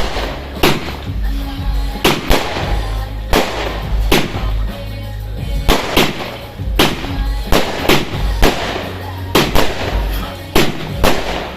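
Fireworks going off in a rapid series: sharp bangs at roughly one per second, irregularly spaced, over a low rumble.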